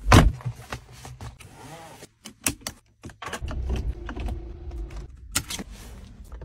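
Clicks and a thump of a car door handle being pulled and the door opening, followed by scattered clicks of the car's interior controls being handled. A low rumble comes in at about three seconds.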